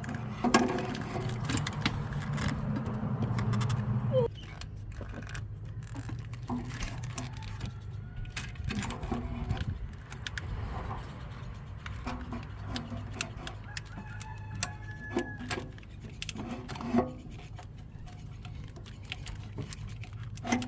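Scattered metal clinks, knocks and rattles of an alternator and tools being handled and worked loose in a car's engine bay, over a steady low hum that drops off sharply about four seconds in.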